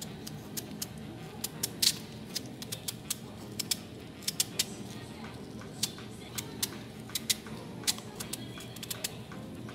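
Chef's knife slicing through raw, peeled sweet potato held in the hand: an irregular run of sharp, crisp clicks as the blade cuts through the firm flesh, over background music.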